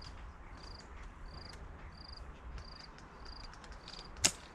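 Cricket chirping steadily: short high chirps repeating about every two-thirds of a second. A single sharp crack, the loudest sound, comes near the end.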